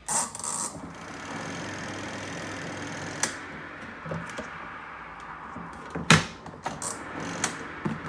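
Spin dryer of a Twin Spin XPB36-388S twin-tub washing machine starting with a sharp click and then running at speed, a steady whir over a low hum, with knocks from its plastic lid, the loudest about six seconds in. The dryer's brake cable has snapped, so the basket keeps spinning freely.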